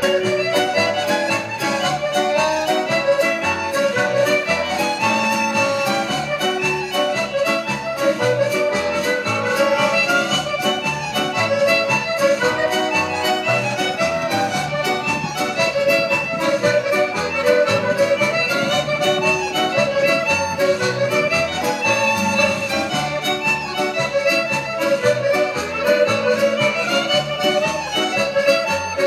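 Scottish country dance music in jig time, played over a loudspeaker, with a lively melody over a steady bass beat.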